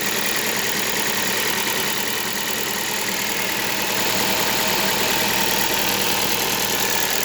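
KIA Rio engine idling cold, a steady running sound with a light rattle, which the owner suspects may be the timing chain jingling slightly.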